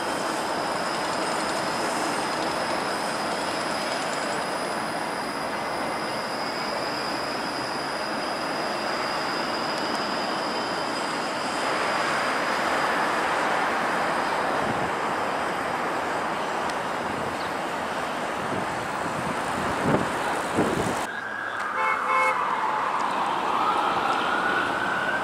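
TTC Flexity Outlook streetcar running past amid city traffic noise, with a steady high whine through the first half. After a cut near the end, a siren wails down and back up.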